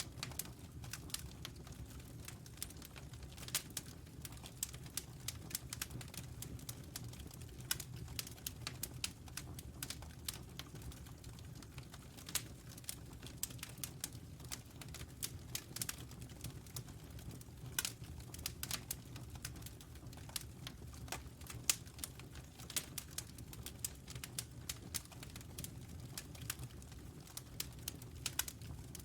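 Wood fire crackling: a constant scatter of small irregular snaps and pops over a steady low rumble.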